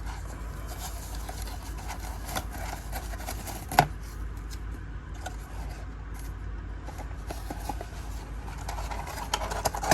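Cardboard package being handled and opened: rubbing and scraping with scattered small clicks, and one sharp knock about four seconds in, over a steady low hum.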